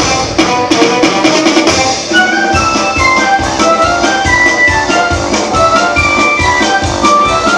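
Instrumental Christmas music: a bright melody of short notes over a steady drum beat that settles in about two and a half seconds in.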